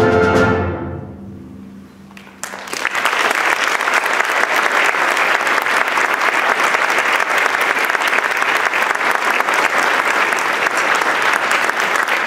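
A concert band's final chord, cut off and dying away in the hall, then an audience applauding steadily from about two and a half seconds in.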